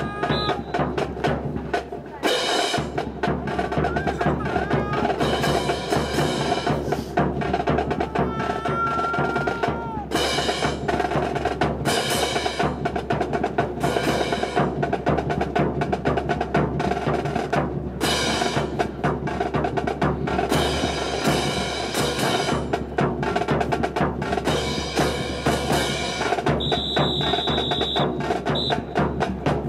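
Rifle drill team marching in step, with massed boots stamping and rifles clacking and slapping in unison: a rhythmic, percussive clatter.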